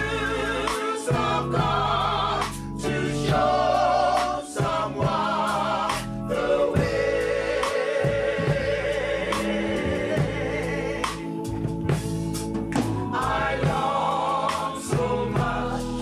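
Gospel choir singing a worship song with a live band behind it: voices with vibrato over bass and drums.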